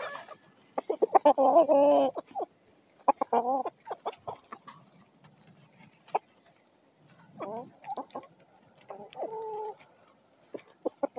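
A flock of hens clucking on and off while feeding: a handful of calls of about half a second to a second each, with short clicks in between.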